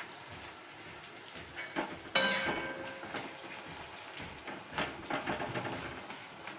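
Metal spatula stirring and scraping onions frying in oil in an aluminium kadai. About two seconds in, the spatula strikes the pan with a sharp metallic clang that rings for about a second, followed by scattered clicks and scrapes.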